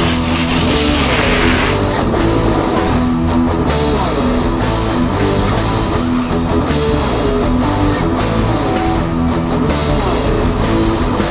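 Rock music with distorted electric guitar, loud and steady. A burst of hiss rides over it for the first two seconds or so.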